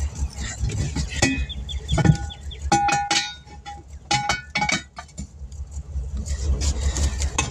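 Steel hand tools clinking and ringing against metal in several sharp strikes, as a stuck part is worked loose during wheel work. A steady low rumble runs underneath.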